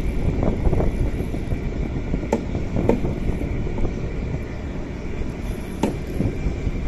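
Steady low rumble aboard a small fishing boat at sea, with two sharp knocks, one a little over two seconds in and one near the end.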